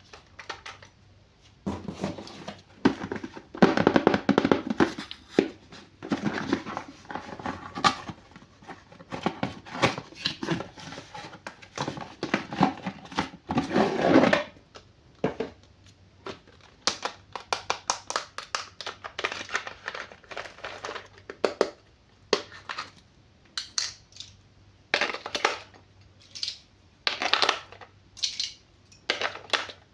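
Toys being handled during unboxing: electronic toy sounds and clattering in the first half, then irregular crinkling of plastic packaging.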